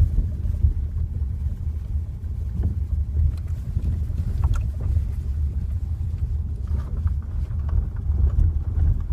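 Kia Ceed JD heard from inside the car while moving: a steady low rumble with a few faint, short knocks scattered through it, the knock from the electric power steering that the owner is complaining of.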